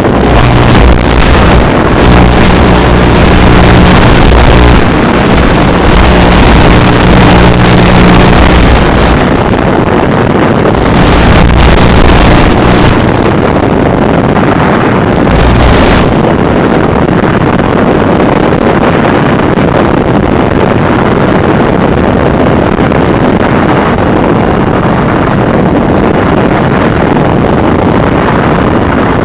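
Loud, steady wind rush on the microphone mixed with the drone of a small craft's motor, as heard on board an FPV craft in motion. A low pitched motor hum stands out during the first several seconds, with gusts of louder rush until about halfway, then the noise evens out.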